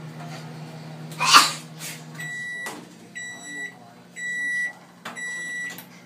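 Microwave oven finishing its cycle: its low running hum cuts off about two seconds in, then it beeps four times, about once a second, to signal it is done. A short loud noise comes just before the hum stops.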